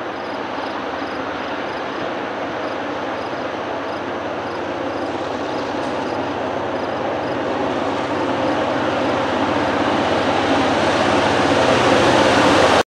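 Two EMD GP38-2 diesel locomotives, each with a 16-cylinder two-stroke EMD 645 engine, running as they approach pulling a freight train, growing steadily louder as the lead unit draws close. The sound cuts off suddenly near the end.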